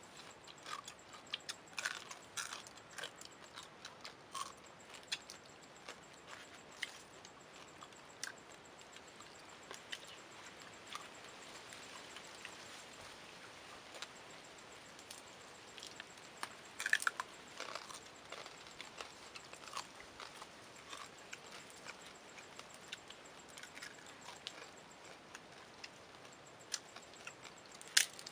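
Shells of grilled dung beetles and crabs cracked between the fingers and chewed: faint, irregular crunches and clicks, with louder bursts of crackling about two seconds in, around seventeen seconds, and at the very end.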